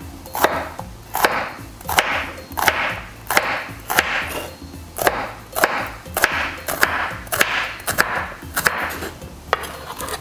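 Chef's knife slicing a hollowed bitter melon half crosswise on a wooden cutting board, in a steady rhythm of about three strokes every two seconds. Each stroke is a short rasp through the melon and a sharp knock on the board.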